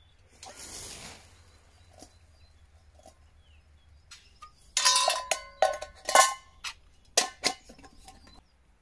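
Metal camping pot, lid and mugs knocked together as they are handled and stacked: a cluster of sharp clinks, each ringing briefly, from about five to seven and a half seconds in.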